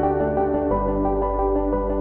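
Ambient background music of sustained synthesizer chords; the bass note shifts lower about two-thirds of a second in.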